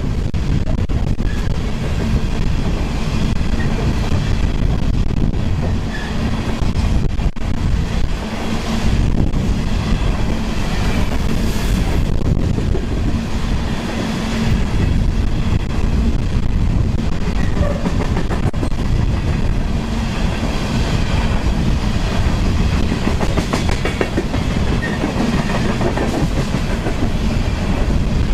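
Freight train of coal hopper cars rolling past close by: a steady noise of steel wheels running over the rails.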